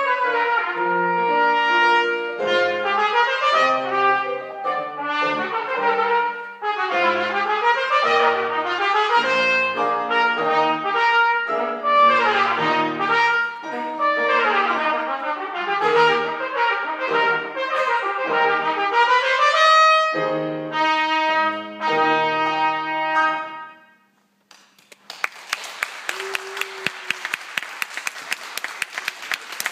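Trumpet and grand piano playing a lively duet that ends on a held final chord. After a brief pause, an audience applauds.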